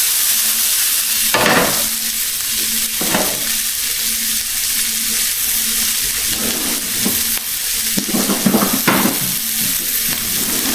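Chopped onion sizzling as it fries in vegetable oil in a pan, a steady hiss with a few short louder sounds in between.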